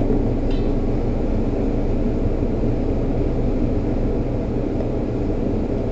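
Steady machine drone with a hiss on top, unchanging throughout, with a single sharp click right at the start.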